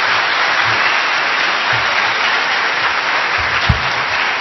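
Audience applauding steadily in a hall, with a single low thump near the end.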